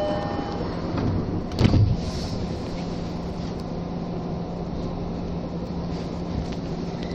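Tokyo Metro Tozai Line train car standing at a station platform: a steady low hum over a noise bed, with one heavy clunk a little under two seconds in.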